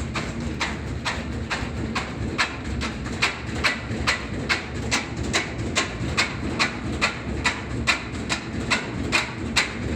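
2005 Whirlpool washing machine on high spin with an unbalanced load, its drum knocking against the cabinet about two and a half times a second over a low rumble. The machine is shaking hard enough to walk out of its spot.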